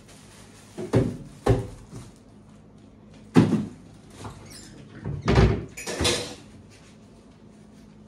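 Kitchen cupboard doors opening and closing: about five sharp knocks and bangs spread over six seconds, the loudest about three and a half seconds in.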